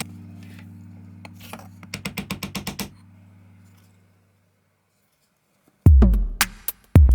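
Air purifier's small electric fan motor humming with bursts of rapid ticking, switching off about three seconds in and fading away. After a short silence, loud electronic music with heavy drum beats starts about six seconds in.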